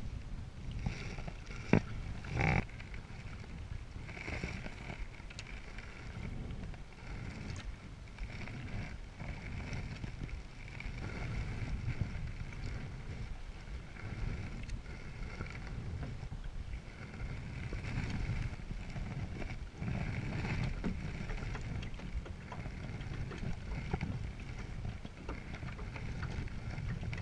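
Paddle strokes of a Selway Fisher Wren canoe, the blade dipping and pulling through calm water every couple of seconds, over a low rumble of wind on the microphone. Two sharp knocks come about two seconds in.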